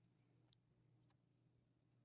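Near silence: a faint steady low hum of room tone, with one faint click about half a second in.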